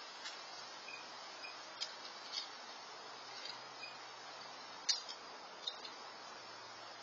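Steady hiss of an outdoor security camera's microphone, with a few faint, sharp high ticks scattered through it. The loudest tick comes about five seconds in.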